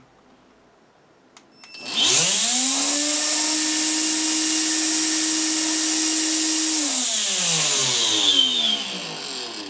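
Electrolux Ergorapido Lithium 18 V vacuum's fan motor, its plastic impeller mended with hot glue, switched on about two seconds in: it spins up with a rising whine and a loud hiss, runs steadily for about five seconds, then is switched off and winds down with a falling tone. It has a harsh edge which the owner says could be the bearings making a harsh noise, or the fan rubbing against something.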